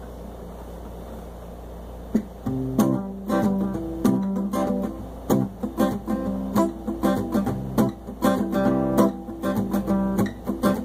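Acoustic guitar strummed in a steady rhythm of chords, starting about two and a half seconds in after a low hum: the instrumental intro before the singing.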